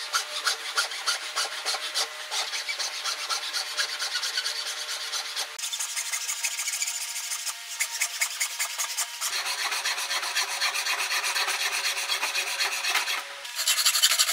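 Hacksaw cutting through a thin metal rod, with quick, steady back-and-forth strokes that get louder near the end.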